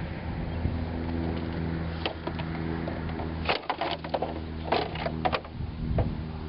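Scattered sharp knocks and cracks of bricks striking a TV set and its casing breaking up, clustered in the middle of the stretch, over a steady low hum.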